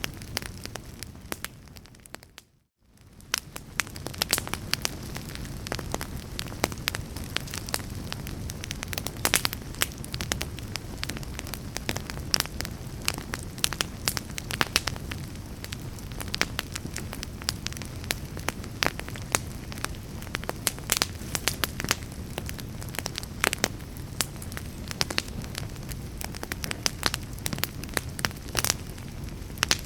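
Burning logs in a fireplace crackling and popping irregularly over a steady low rumble of flame. About two to three seconds in, the sound fades out to silence and straight back in.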